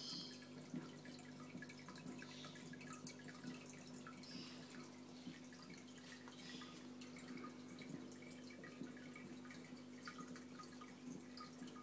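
Faint aquarium water dripping and trickling, many small irregular drips and blips over a steady low hum.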